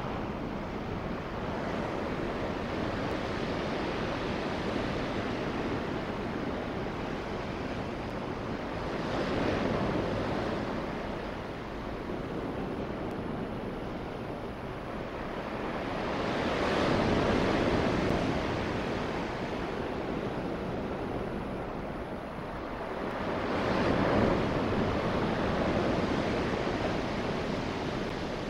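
Ocean surf breaking on the shore, a steady wash that swells three times, about seven seconds apart.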